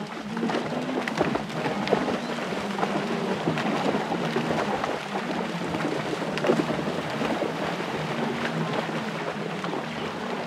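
A herd of wildebeest splashing through a river, a dense rush of water with many sharp splashes. Short low calls from the animals come and go under it.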